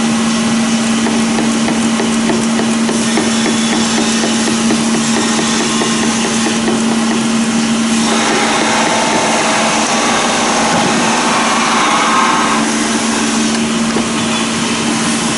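A machine running steadily with a constant hum and a loud, even rush of noise over it; the character of the noise shifts about eight seconds in.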